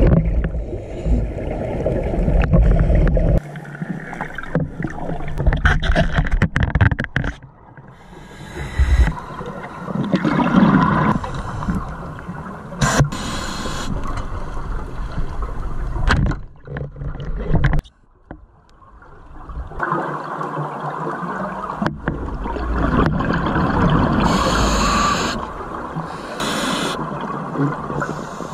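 Underwater sound of a scuba diver descending: a muffled rush of water with a bubbly hiss of exhaled regulator bubbles every few seconds. A heavy low rumble fills the first few seconds.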